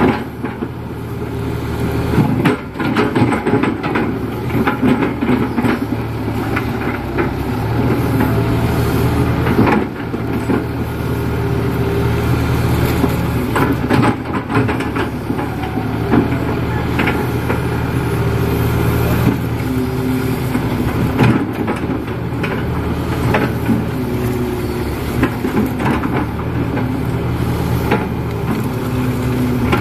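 Kato HD512E crawler excavator's diesel engine running under hydraulic load while it digs. The engine note shifts as the boom and bucket work, with scattered knocks throughout.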